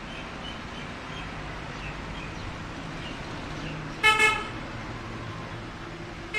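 Steady road-traffic hum with a short double honk of a vehicle horn about four seconds in, and another horn toot starting right at the end.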